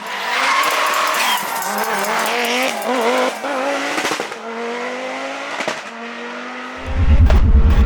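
Rally car engine revving hard with its pitch wavering up and down as it drifts, with tyre squeal and skidding noise over it. Near the end a loud, low, rhythmic throbbing comes in.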